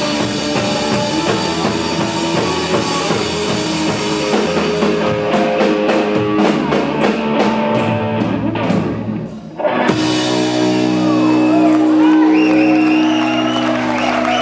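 Rock band playing, with electric guitar and drum kit. The music breaks off briefly about nine and a half seconds in, then comes back as a long held chord with a sliding melody line over it.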